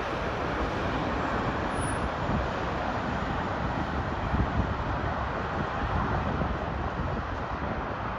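Steady rushing roar of a Boeing 787 airliner's jet engines, with gusty wind rumbling on the microphone.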